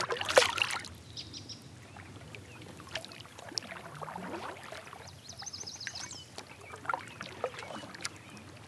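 A released bass splashing as it kicks away from the side of a kayak, loud and brief at the start. After it, quiet water with small drips and knocks from the kayak and paddle, and a short high bird trill about halfway through.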